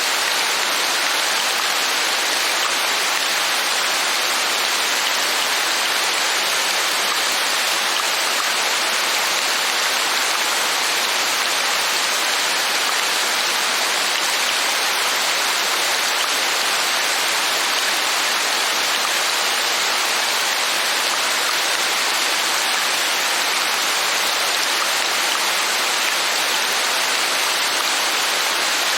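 Steady rain: an even hiss of many drops that holds the same level throughout, with no single drops or thunder standing out.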